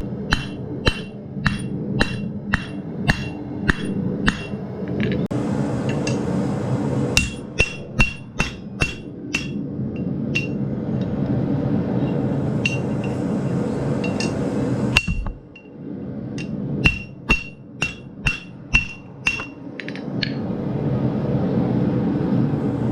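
Blacksmith's hammer striking steel on an anvil in runs of about two blows a second, each blow ringing, with a steady rushing noise underneath.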